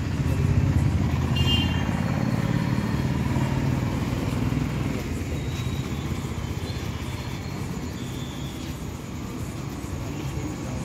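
Steady low motor rumble that swells in the first two seconds and then slowly eases off.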